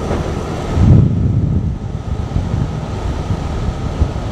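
Wind rushing over the microphone of a camera on a moving motorbike, with the bike running underneath; a louder gust about a second in.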